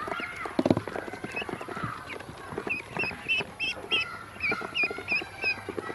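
Ducklings peeping as they peck at feed in a plastic basin, their bills tapping on the plastic. A louder knock comes a little over half a second in, and the peeps come thickest in the second half, several short calls in quick succession.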